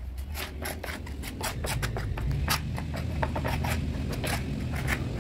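Rapid, irregular scraping strokes of a small wooden scrap spreading wet white glue across a plywood door panel, with a steady low hum underneath.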